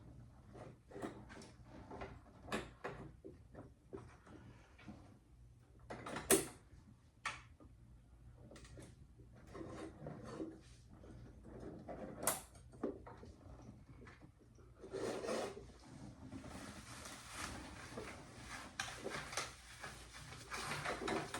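Parts of an animatronic figure being handled and fitted together: scattered clicks and knocks, with a denser stretch of rustling from about two-thirds of the way in.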